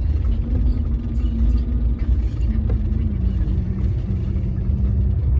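Bus engine and road rumble heard from inside the moving vehicle: a steady low rumble with an engine hum that drops slightly in pitch about three seconds in.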